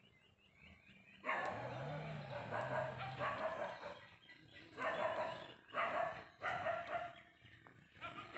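Repeated animal calls: a longer call about a second in, then several short calls of about half a second each.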